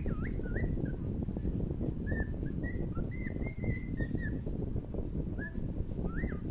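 Short whistled notes that slide down and back up, repeated every second or so, over a steady low rumble.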